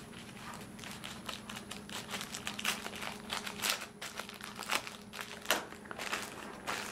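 Small plastic bag crinkling in the hands as it is opened, with a run of irregular crackles.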